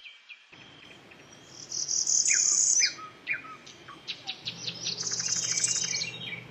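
Northern parula singing: two high, buzzy songs, the first about a second and a half in, the second a quick run of notes running into a buzz in the second half.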